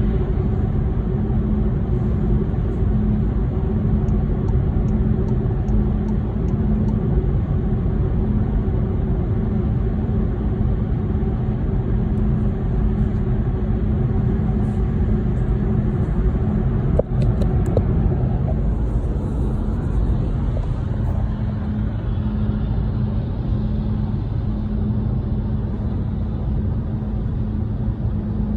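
Volkswagen e-Golf on the move, with steady low rumble and a steady low hum that drops away for a few seconds about two-thirds of the way through: the weird noise the owner is recording. One brief click a little past halfway.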